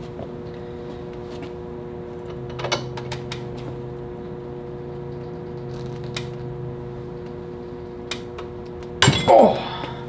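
Small clicks of wire under strain as a soldered heat-shrink butt connector is pulled by hand in a bench vise, over a steady hum; about nine seconds in comes a sudden loud burst as the splice rips apart at the joint.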